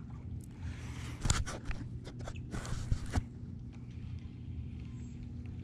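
Short clicks and rustles in two clusters, about a second in and between two and three seconds in, over a steady low hum.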